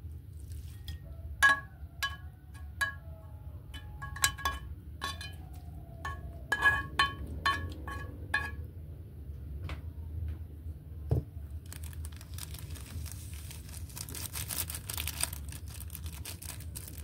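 A pan knocking against the rim of a ceramic bowl about a dozen times while noodles are tipped in, each knock ringing briefly. From about twelve seconds in, a foil seasoning sachet crinkles as it is torn and shaken out over the bowl.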